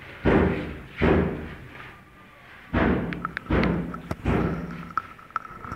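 A series of dull thuds, about five in the first four seconds, each with a short echoing tail in a bare, tiled room. Lighter clicks and a faint steady high tone follow.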